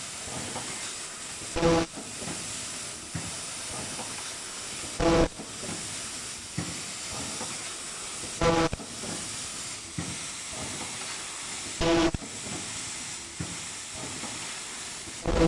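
Automatic foldable N95 mask-making machine running: a steady hiss, broken about every three and a half seconds by a short, loud buzzing tone as the machine cycles, five times.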